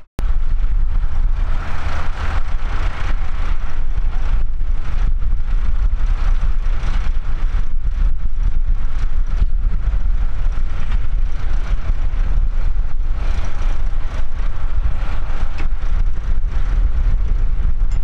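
Tractor diesel engine running steadily, with a low rumble.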